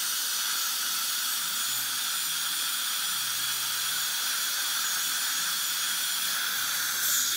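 High-speed dental drill running steadily on a tooth, a thin high whine over the hiss of its water spray and the suction.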